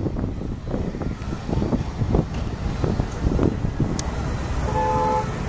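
Airbus A320neo jet engines giving a low, uneven rumble as the airliner moves along the runway, with gusts of wind buffeting the microphone.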